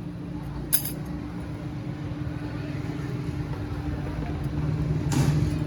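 A steady low mechanical hum, slowly growing louder, with a sharp tick just under a second in and a brief hiss near the end.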